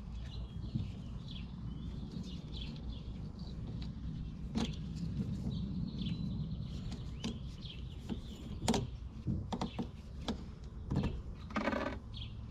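Small birds chirping again and again, over scattered sharp metallic clicks and knocks from pliers and a hose clamp being worked on a planter's fertilizer tube fitting. A low steady rumble runs underneath.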